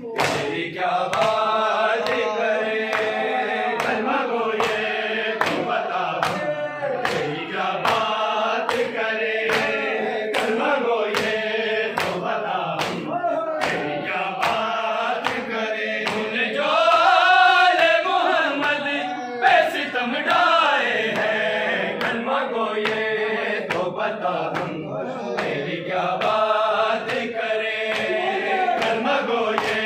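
A group of men chanting a noha, a Shia lament, in chorus. Sharp, regular slaps of hands beating bare chests (matam) keep time, roughly once a second.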